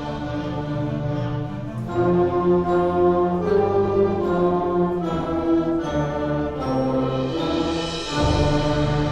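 Concert band playing a film-score passage with brass: a sustained chord, then a moving melody from about two seconds in, settling on another held chord near the end.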